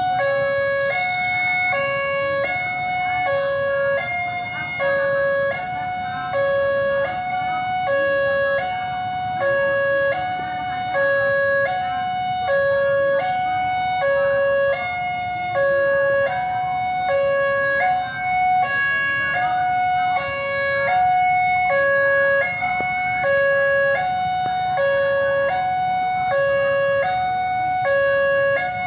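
Railway level-crossing warning alarm sounding its two alternating tones over and over, steadily. It is the signal that a train is approaching the crossing.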